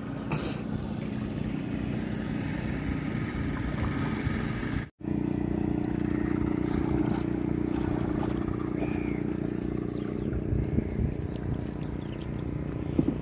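Steady engine hum. It cuts out briefly about five seconds in and comes back a little higher in pitch.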